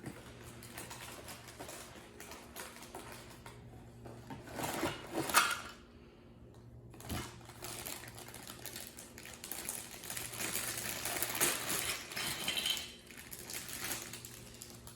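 Plastic Duplo bricks clattering and rattling as they are tipped out of their box and handled, in irregular bursts of clicks, loudest about five seconds in.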